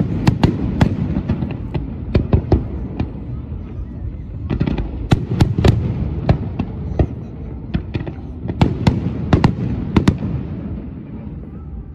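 Aerial fireworks going off: many sharp bangs and crackles over a continuous low rumble, coming in clusters and thinning out near the end.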